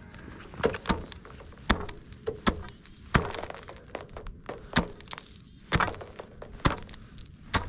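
Thin, clear lake ice giving sharp cracks and crunches as it is walked out on, about one a second.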